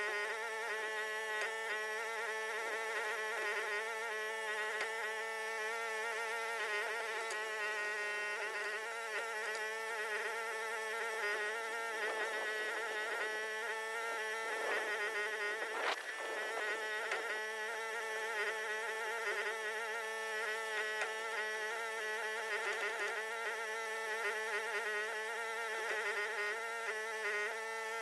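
Huayee HY14C mini excavator's engine running steadily under hydraulic load, a droning whine whose pitch wavers slightly as the machine works. A single knock sounds about halfway through.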